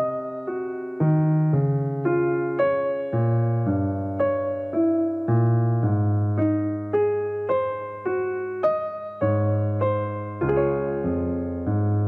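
Background music: a gentle solo piano piece, notes and chords struck at an unhurried, steady pace, each ringing and fading.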